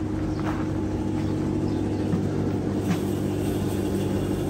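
A steady, low mechanical hum made of a few even tones, with a few faint light clicks.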